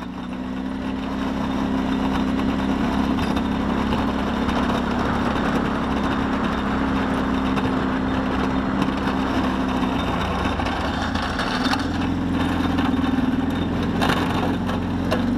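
Kawasaki Brute Force 650's V-twin engine running steadily as the ATV pushes snow with its plow blade, with a constant rushing noise over the engine note. The engine note shifts a little over halfway through, and there is a single knock near the end.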